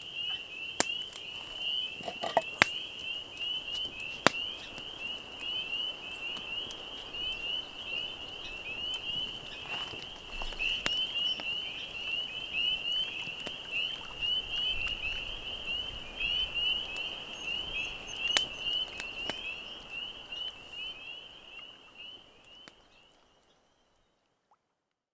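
A dense evening chorus of spring peepers, many short high peeps overlapping without a break, with a few sharp cracks scattered through it; the whole fades out near the end.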